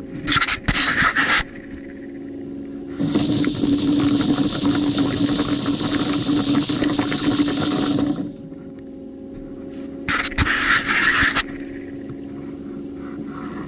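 Compressed air from an air-charged duct-cleaning dislodger hissing through ductwork in on-off blasts: a long loud blast from about three to eight seconds in, with shorter choppy bursts near the start and around ten seconds. A steady low hum runs underneath.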